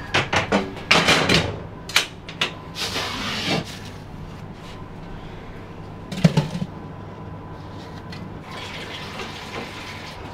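Knocks and scraping in the first few seconds, a sharp clack a little after six seconds, and water running from a hose into a tall metal pot, filling it.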